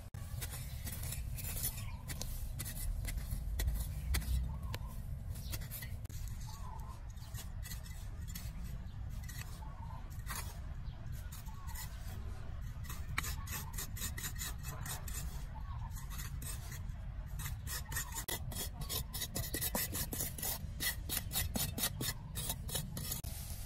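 A small hand trowel scraping and chopping into dry, crumbly soil in many short strokes that come faster near the end, with hands scraping loose dirt out of the hole. A steady low rumble runs underneath.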